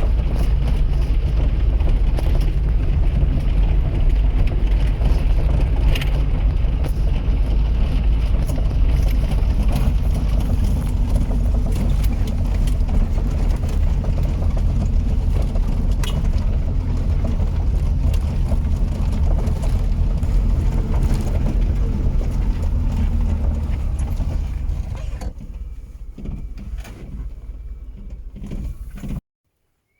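A moving vehicle's engine and road noise: a steady low rumble that fades after about 24 seconds, then cuts off abruptly just before the end.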